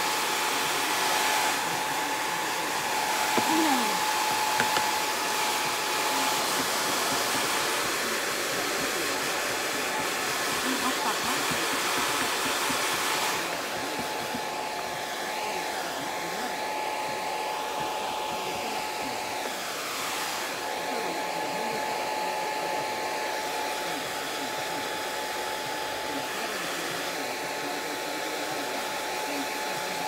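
Handheld hair dryer blowing steadily on a toy poodle's coat: a rush of air with a steady motor whine under it. The sound drops a little about halfway through.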